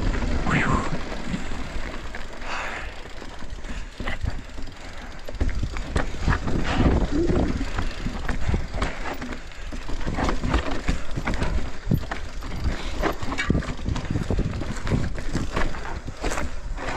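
Mountain bike riding over rough trail: tyres running on dirt and rock, with frequent rattles and knocks of chain and frame over bumps, and wind rumbling on the microphone.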